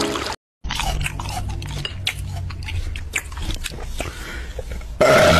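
Crinkling of a Doritos chip bag and crunching chips: a steady scatter of short, sharp crackles. A sudden loud burp comes near the end.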